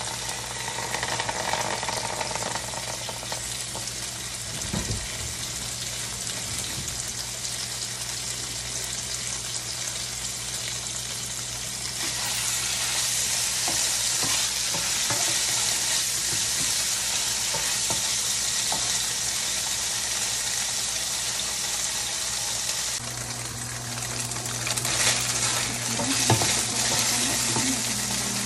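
Cubes of tofu sizzling as they fry in hot oil in a nonstick wok, with a spatula scraping and turning them now and then. The sizzle grows louder about halfway through, over a steady low hum.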